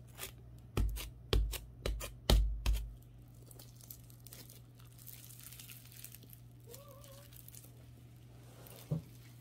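Thick slime coated in crunchy toppings being pulled from its tub and torn apart by hand, giving faint crackling and tearing. About a second in come several loud knocks with deep thumps over about two seconds, from the tub and table being handled.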